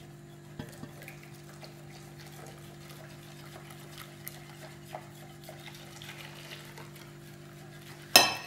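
Wire whisk stirring hot milk into an egg, sugar and cornstarch mixture in a glass bowl, with scattered light clicks of the whisk against the bowl over a steady low hum. A single sharp, loud metal clank comes near the end.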